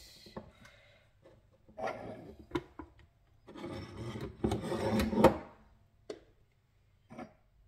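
A plastic juice jug being handled and pulled away from a juicer: scraping and rubbing of plastic against the machine, loudest in the middle, followed by two light knocks near the end.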